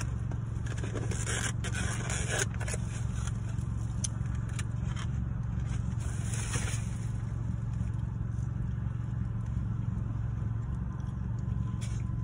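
Rustling and scraping of a paper takeout bag and a white takeout box being handled and opened, in bunches of crinkly handling noise. A steady low hum of a car runs underneath.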